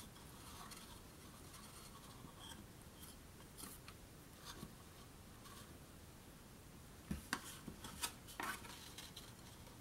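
Faint rustling and rubbing of cardstock and twine as hands tie a knot in the twine and handle a folded paper box, with a few soft taps and crinkles near the end.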